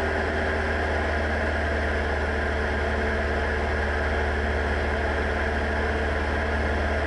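Diamond DA40's engine and propeller droning steadily, heard from inside the cabin in flight.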